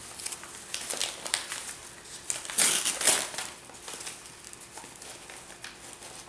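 Newspaper wrapping rustling and crinkling as it is pulled off a potted plant by hand, in irregular bursts that are loudest about halfway through.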